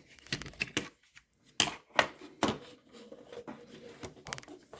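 Handling clicks and knocks as a small work light is taken off its mount and set underneath the lock, a few sharp clicks with the loudest about two seconds in.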